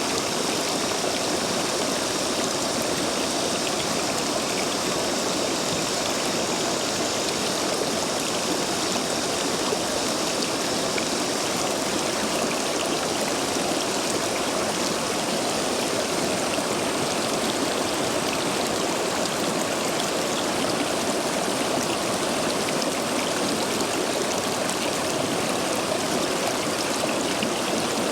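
Stream water rushing steadily through the gaps between stepping stones, running full and fast after heavy rain.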